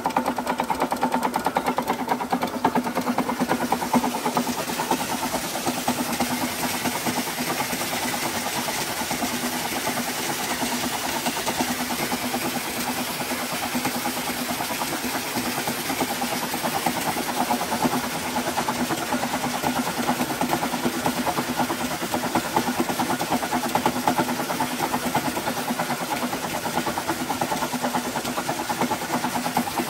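Belt-driven flywheel rig running steadily: an electric motor turning a heavy flywheel and alternator through V-belts, with a steady hum. An electric centrifugal water pump runs alongside, with water gushing from its outlet.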